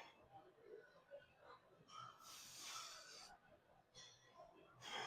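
Faint, forceful exhalations of a man straining through dumbbell shoulder presses: a long hissing breath out about two seconds in and another near the end.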